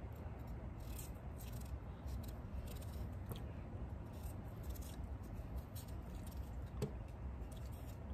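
Paring knife scraping and slicing the skin off a potato by hand: a run of faint, irregular short strokes, with one sharper click near the end.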